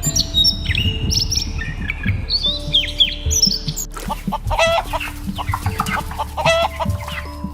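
Birds calling over background music: a busy run of short chirps with quick falling notes, then, after an abrupt change about four seconds in, a series of repeated, fuller calls.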